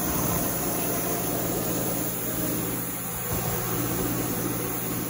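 A steady low hum with an even hiss over it, from a running kitchen fan or appliance, with no distinct knocks or taps.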